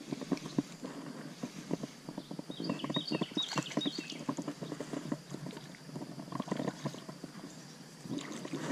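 Spinning reel being cranked to retrieve a spinner lure, a quick irregular rattle of clicks. A bird calls a short series of high, falling notes about three seconds in.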